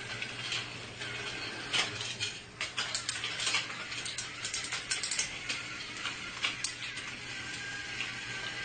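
A small battery-powered toy train's motor whirring steadily, with a run of sharp clicks and clatter through the middle.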